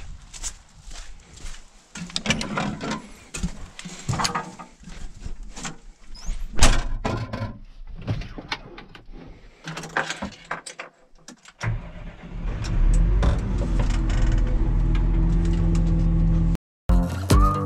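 Clunks and knocks of someone climbing into a tractor cab, then the tractor's diesel engine starting about twelve seconds in and running steadily.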